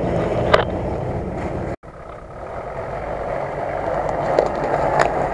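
4x4 SUV engine running off-road, cutting out abruptly about two seconds in. It then comes back and grows steadily louder as the vehicle crawls down a dirt bank toward the listener, with a couple of single knocks.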